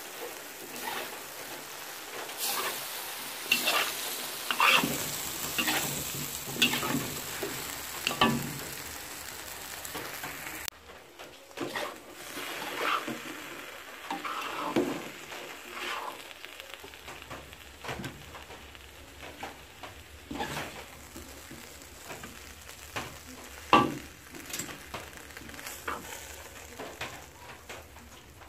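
Taro stems and taro chunks sizzling in a hot wok while a metal spatula stirs, scraping and knocking against the pan. About ten seconds in the sizzle cuts off suddenly. Scattered knocks of metal utensils on the wok follow as the cooked dish is dished out.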